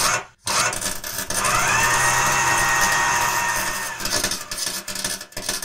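A small electric power tool running with a rough rasping noise. A high whine rises about a second in, holds steady, and dies away around four seconds in.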